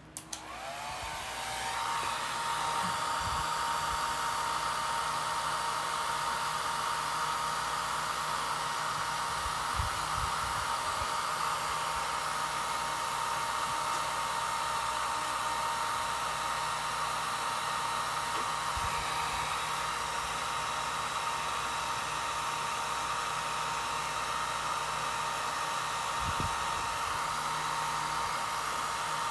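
Handheld electric hot-air blower switched on just after the start, its motor whine rising as it spins up, then running steadily with a constant whine over a loud rushing of air.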